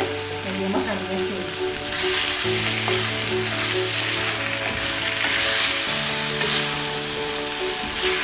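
Chicken pieces sizzling in a frying pan in a dark soy-sauce glaze as they are stirred with a spatula; the sizzle grows louder about two seconds in. Soft background music with held chords plays underneath.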